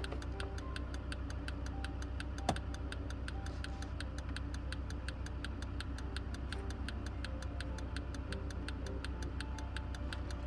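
Background music: a light melody over a steady low bass and an even ticking beat, with one sharper click about two and a half seconds in.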